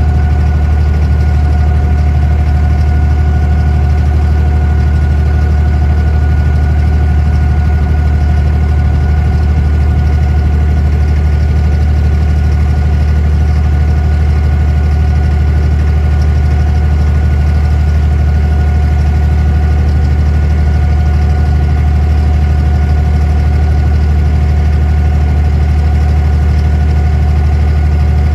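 The inboard diesel engine of an abra, a wooden water taxi, running steadily with the boat under way: a loud, unchanging low drone with a steady whine above it.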